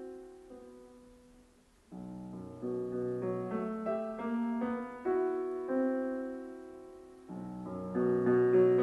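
Solo piano from a 1951 recording of a song: a phrase dies away into a near-silent pause about two seconds in, then soft, sustained chords enter, with a louder entry near the end.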